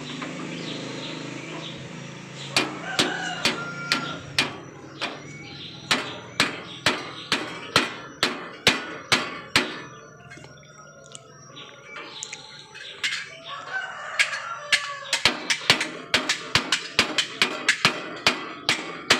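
Repeated sharp metal knocks of a hammer on a coffee huller while its new fan is fitted, about two a second at first, then a pause, then a quicker run of taps near the end.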